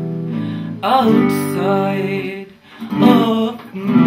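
Acoustic guitar chords ringing, with a woman singing short phrases over them.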